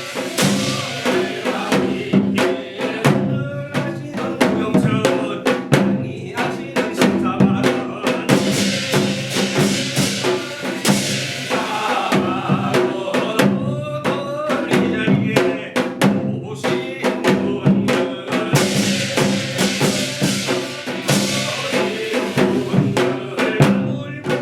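Ensemble music in the style of Hwanghae-do shamanic gut, reworked in a modern way. Drums are struck in a busy, steady rhythm under sustained melodic lines, with a cymbal-like wash near the start and again near the end.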